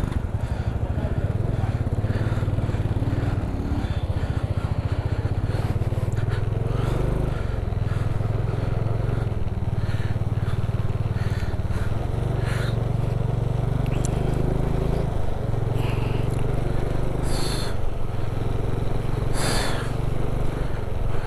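Motorcycle engine running steadily under way, with a constant rush of riding noise over it and two short hissing bursts near the end.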